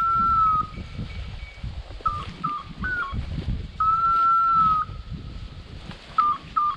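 Hunting dog's electronic beeper collar sounding a repeating pattern about every four seconds: two short beeps, a quick stepped chirp, then a long steady tone of about a second. The pattern matches a beeper's point mode while the setter stands on point. Under it is a low rustling of brush.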